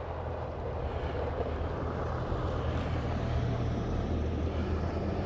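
Heavy snow-clearing truck engine, a steady low rumble growing slowly louder as the truck approaches.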